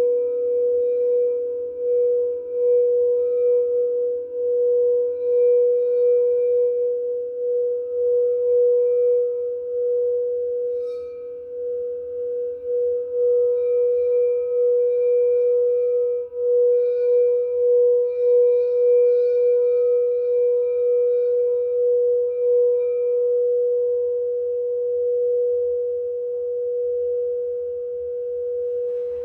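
Singing bowl held sounding one sustained, steady tone that does not die away, its loudness wavering in a slow pulse, with fainter higher overtones coming and going above it.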